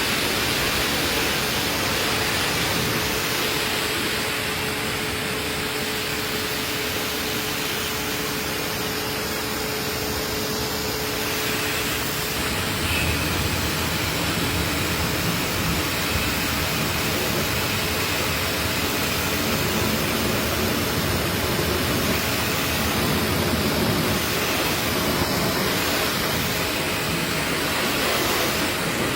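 Steady rushing noise of car-cleaning equipment running, with a faint motor hum underneath; about twelve seconds in, the hum changes pitch and the low rumble grows stronger.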